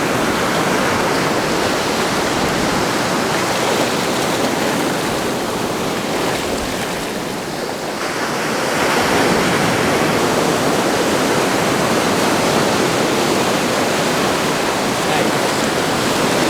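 Ocean surf breaking and washing up the beach, a loud, steady rushing that eases about seven seconds in and swells again a second later.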